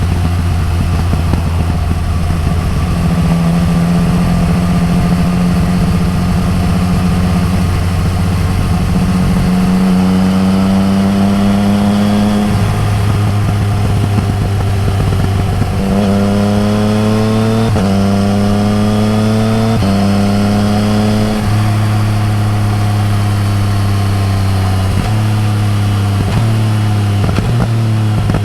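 Yamaha MT-09 Tracer's three-cylinder engine through an Akrapovič exhaust under way, holding steady at first, then pulling up through the gears with several quick upshifts in the second half, each one a rising pitch that drops back.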